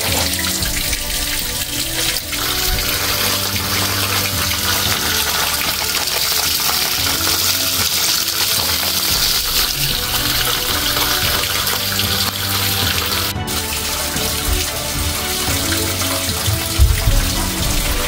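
Water gushing steadily from the open drain valve of a 50-gallon electric water heater and splashing onto the basement floor, as the tank is drained to flush out sediment. Background music plays underneath.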